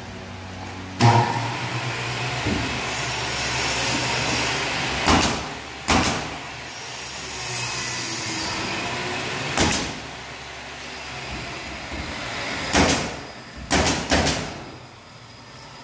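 Pneumatic nail gun firing about six sharp shots into pine bench framing, spread out with two close together near the end. A portable air compressor runs steadily with a low hum under the first part and stops about ten seconds in.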